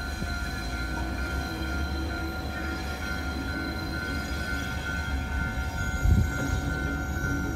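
Diesel-hauled freight train approaching slowly, with a steady low rumble that swells briefly about six seconds in. A steady high tone sounds over it.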